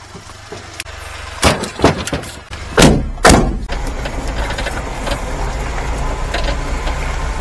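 Several loud knocks and thuds as someone climbs into the cab of a 1992 Daihatsu Hijet 660cc mini truck, then the truck's engine idling steadily, heard from inside the cab.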